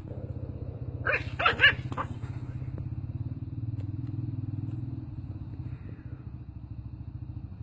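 A small dog barking four or five times in quick succession about a second in, over an engine running steadily that cuts off near the end.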